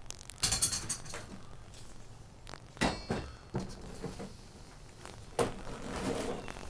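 A handful of separate sharp clinks and knocks of hard objects, a second or two apart, some with a short metallic ring, as of tools and metal parts being handled.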